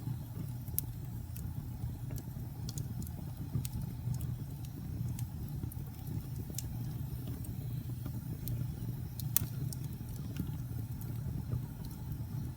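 Wood fire burning with a steady low rumble and scattered sharp crackles and pops, one louder pop about nine seconds in.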